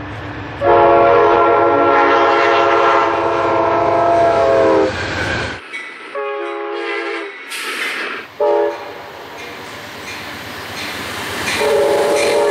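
Nathan K5LA five-chime air horns on Amtrak GE Genesis locomotives sounding a chord. The first is one long blast of about four seconds over the rumble of the passing train, and it cuts off suddenly. After it come a shorter blast, a brief toot, and another long blast starting near the end.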